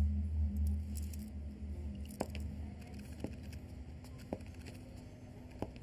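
Low droning background score fading out over a faint steady hum, with a few soft isolated clicks.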